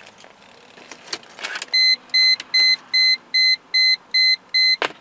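Mercedes-Benz W210 E320's key-left-in-ignition warning chime: short, high, evenly spaced beeps, about three a second, starting about two seconds in. It signals that the key is still in the ignition. A few faint clicks come before it, and a sharp click comes near the end.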